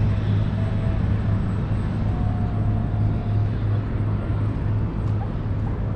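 Steady low engine drone over outdoor city ambience, with a faint whine briefly rising over it.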